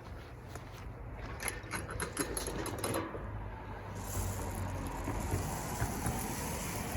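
Safflower seed rattling as it is handled and poured into a bird feeder: a run of light clicks and rattles, then a steadier hiss from about four seconds in.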